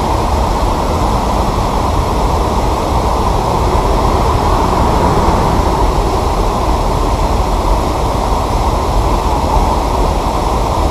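Steady, loud rumbling wind noise on the camera's microphone, with no distinct events.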